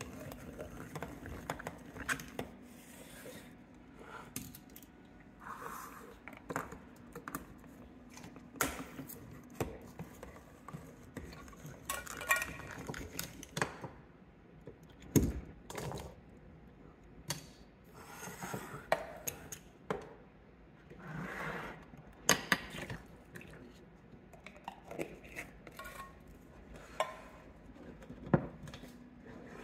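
Kitchen handling sounds: a hand-crank can opener cutting around a can, then scattered metal clicks and knocks as canned mixed vegetables are drained in a mesh strainer and tipped into a stainless steel bowl.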